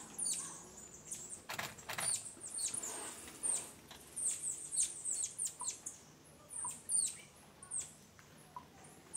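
Small songbirds calling: many short, thin, high-pitched notes, each dropping in pitch, several a second at first and thinning out after about six seconds.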